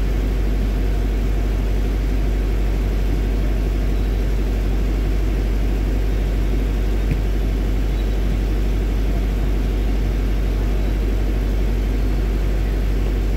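Steady wind rumble buffeting the microphone, with one brief knock about seven seconds in.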